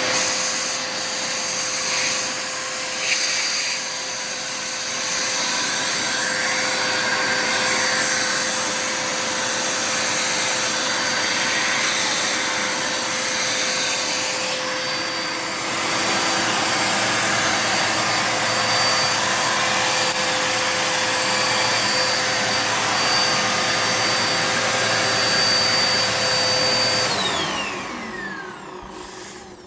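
Dirt Devil multi-surface vacuum cleaner running steadily with a constant motor whine, then switched off near the end, its whine falling in pitch as the motor spins down.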